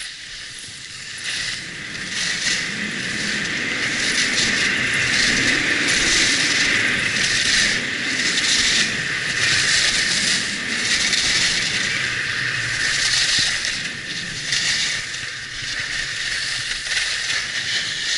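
Skis carving and scraping over packed snow in a run of turns, the hiss swelling with each turn, over a low rumble of wind on the microphone; it eases off near the end as the skier slows.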